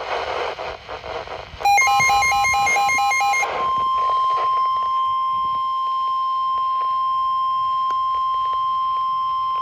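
NOAA Weather Radio alerting a new tornado warning: after a moment of radio hiss, a short burst of warbling SAME digital header tones, then the steady 1050 Hz warning alarm tone, which holds unbroken from about three and a half seconds in.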